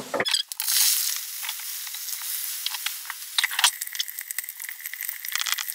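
Chopped garlic frying in hot oil in a stainless-steel frying pan: a steady sizzle with many small crackles and pops.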